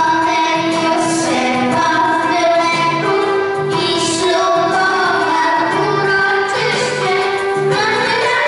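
Group of young schoolgirls singing a song together into handheld microphones.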